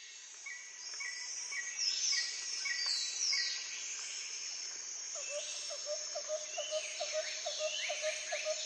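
Nature ambience of birdsong over a steady, high insect hum: short chirps repeating about twice a second, a few falling whistles around two to three seconds in, and from about halfway a lower call repeated several times a second.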